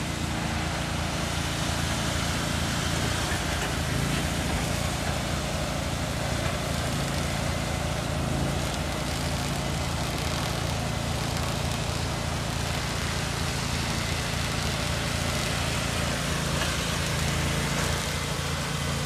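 A motor running steadily, with a low pulsing hum under an even hiss that holds level throughout.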